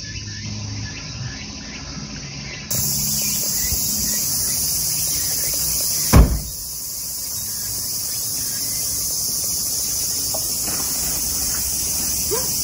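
A steady high-pitched insect chorus, starting about three seconds in. A single loud thump about six seconds in.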